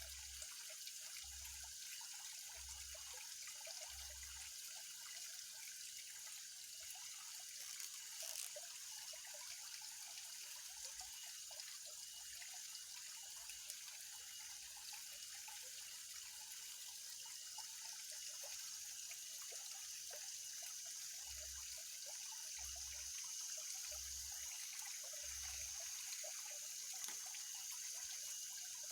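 Faint, steady high hiss of outdoor ambience at a pond, with a few soft low thuds in short runs near the start and again from about two-thirds of the way through.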